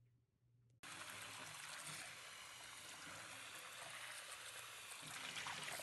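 Water pouring in a stream into a black frying pan, splashing in the pan. It starts suddenly about a second in.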